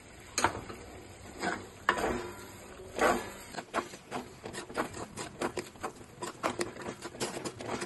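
Wooden spatula stirring chopped ridge gourd and tomato in a clay pot: a few separate knocks in the first three seconds, then quick, irregular scraping and clicking against the pot from about three and a half seconds on.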